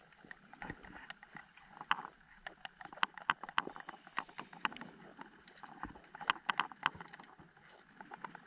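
Underwater recording at a deep reef: irregular sharp clicks and pops over a steady faint hiss, with a brief higher-pitched hiss about four seconds in.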